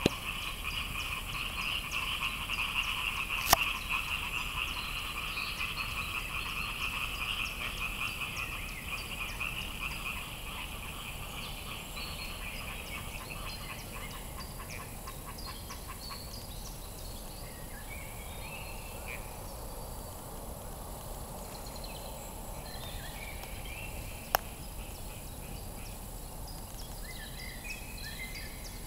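A chorus of many frogs calling at once, a continuous croaking din that is loudest for the first ten seconds or so and then fades. Two sharp clicks cut through it, one a few seconds in and one near the end.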